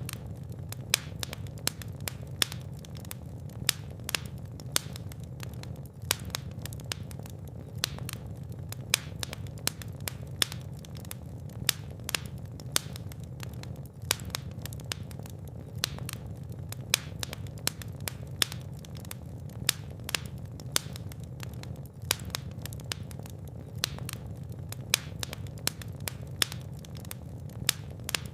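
Fire in a fireplace crackling and popping, with sharp irregular snaps over a steady low roar of the flames.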